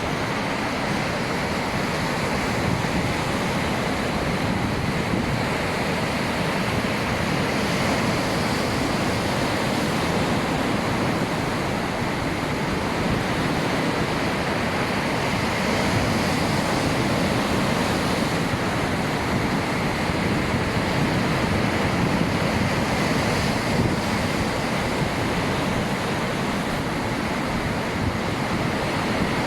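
Heavy ocean waves breaking and washing in a steady, continuous roar of surf, swelling and easing slightly every few seconds.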